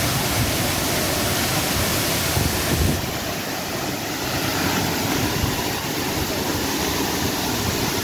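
Waterfall in heavy flow: a steady, loud rushing of falling water, with wind buffeting the microphone. The rush drops a little about three seconds in.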